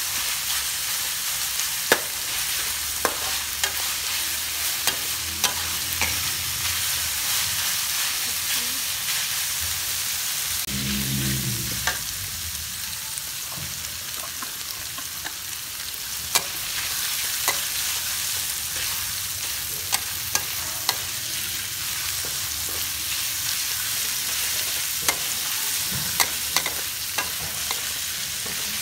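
Pork and sliced ginger sizzling in a steel wok with a steady hiss, while a metal spatula stirs and scrapes, knocking against the pan in irregular sharp clinks.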